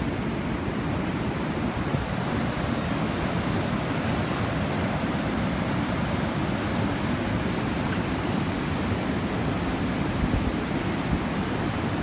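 River water rushing steadily over a low dam, a constant deep roar of churning whitewater.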